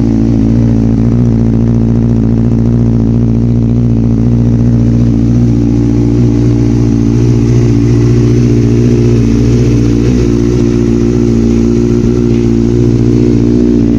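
Benelli TNT 600i's inline-four engine idling steadily through an aftermarket SC side silencer.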